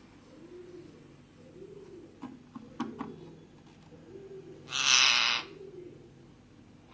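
Rose-ringed parakeet giving soft, low cooing notes about once a second, with a few light taps. About five seconds in comes a short, loud, harsh rasping burst.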